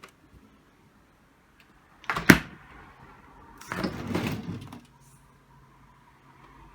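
Refrigerator being handled: a sharp knock about two seconds in, then about a second of sliding, rattling noise, like a door or drawer being worked.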